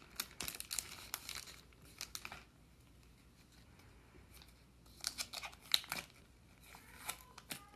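Plastic trading-card pack wrapper crinkling and tearing as it is opened, a dense crackle for about two seconds, then a few short crinkles and rustles as the cards are pulled out and handled.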